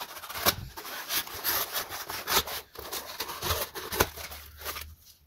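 Spyderco PM2 folding knife slitting open a shipping package: a run of irregular scraping, rasping cuts that stops near the end.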